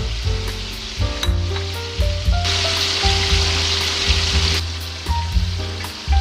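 Food frying in hot oil with a crackling sizzle that swells suddenly for about two seconds mid-way, over background music with a steady beat.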